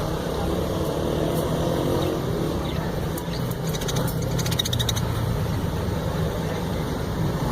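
Steady low rumble like a running engine or vehicle. About three and a half seconds in, a burst of rapid high-pitched ticking lasts for about a second and a half.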